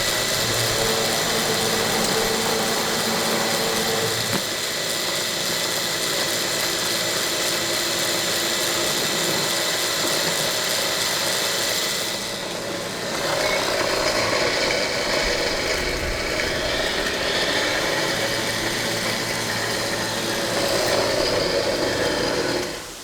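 Homemade grain grinder's electric motor spinning a large fly-cutter blade, running steadily. About halfway through its sound drops briefly, then turns rougher and noisier. It cuts off suddenly near the end as the motor trips the breaker, a sign it lacks the power to drive the blade.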